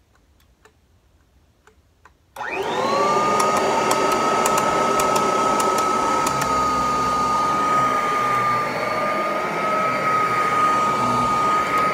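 Kirby Heritage II upright vacuum cleaner switched on about two seconds in: the motor spins up with a quick rising whine and settles into a steady, loud, high-pitched running whine with a rushing hiss. A scatter of sharp ticks comes in the first few seconds after it starts.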